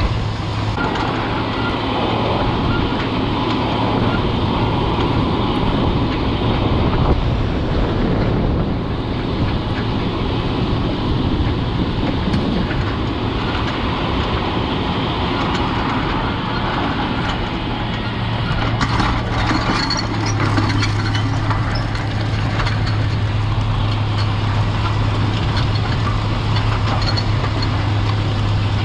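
White 4-270 four-wheel-drive tractor's diesel engine running steadily under load, pulling a strip-till toolbar, with a deep steady hum that fades a little and then grows stronger about two-thirds of the way in.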